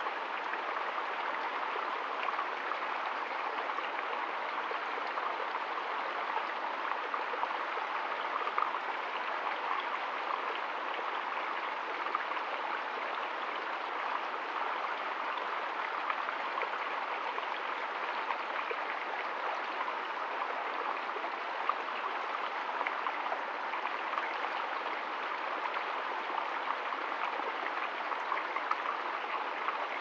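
Small stream trickling over a rock ledge into a shallow pool: a steady, even splashing.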